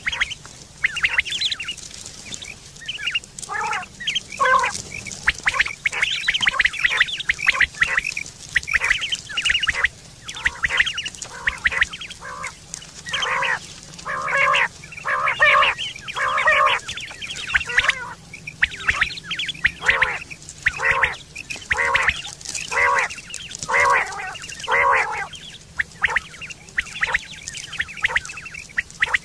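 Common quail calling, short nasal notes repeated in quick groups of two or three with brief pauses between them, as used for a hunting lure.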